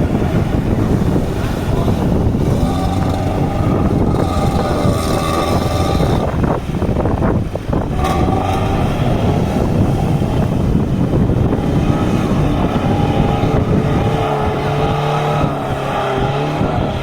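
Chevrolet Niva's engine revving hard under load while driving through mud, its pitch rising and falling repeatedly.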